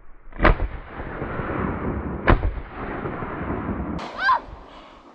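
.410 magnum shotgun firing two shots a little under two seconds apart, each report followed by a long rolling echo.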